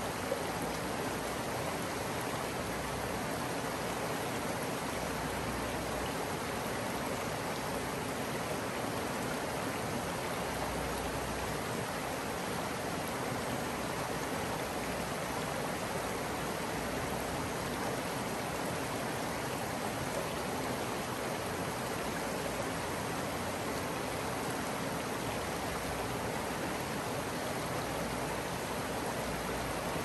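Creek water running steadily, an even rushing with no breaks.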